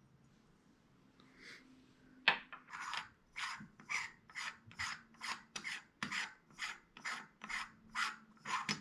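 Threaded aluminium adapter rings being screwed together by hand: short, rasping rubs, about two a second, beginning about two seconds in.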